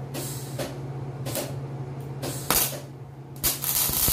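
Wire-feed (MIG) welding arc crackling and sizzling as expanded-metal mesh is welded to a steel frame: a few short tack bursts, then a longer continuous bead starting about three and a half seconds in.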